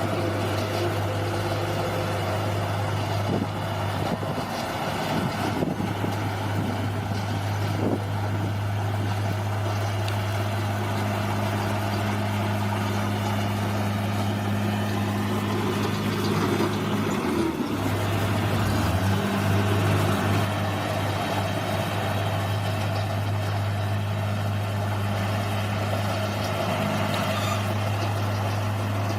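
Bulldozer's diesel engine running steadily while working, with a brief drop in pitch a little past halfway as it takes load, then recovering.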